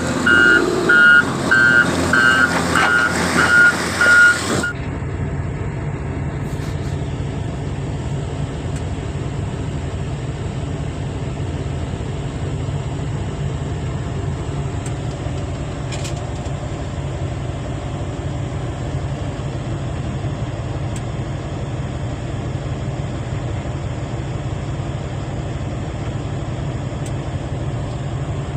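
A heavy-equipment reversing alarm beeps about twice a second over machinery noise, then stops abruptly about four and a half seconds in. After that, the steady drone of a large diesel mining machine's engine is heard from inside its cab.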